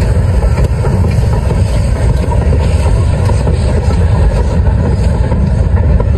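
A train of passenger coaches rolling past close by, just behind the two steam locomotives hauling it: a loud, steady rumble of wheels on the track.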